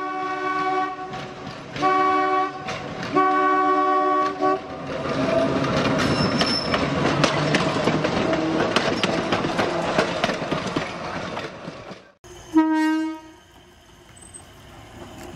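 Air horn on a J.G. Brill Norristown Bullet car sounds three blasts, the first the longest, then the car runs past with its wheels clicking over the rail joints. After a cut, a WABCO A-2 horn gives one short blast.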